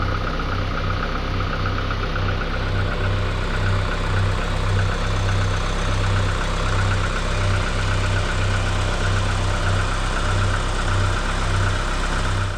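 Saab 900's engine running steadily, with a low throb that pulses about twice a second.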